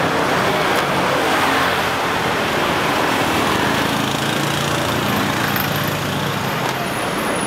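Road traffic: a motor vehicle's engine running over a steady wash of street noise.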